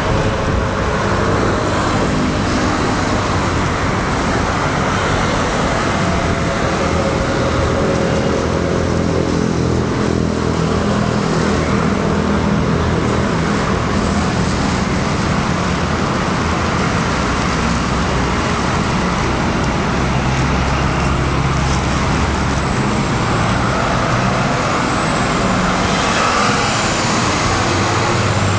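Steady road traffic: the engines and tyre noise of passing vehicles, unbroken throughout.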